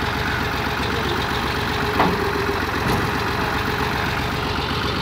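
New Holland Fiat 480 tractor's diesel engine running steadily, with one sharp knock about two seconds in.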